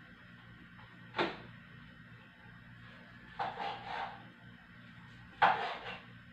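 Knife slicing longganisa sausage on a cutting board, giving separate sharp knocks: one about a second in, a quick run of about three around the middle, and the loudest near the end.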